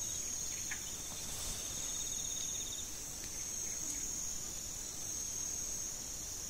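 Insect chorus in forest: a steady high-pitched buzz, with a second, lower pulsing trill that stops about three seconds in.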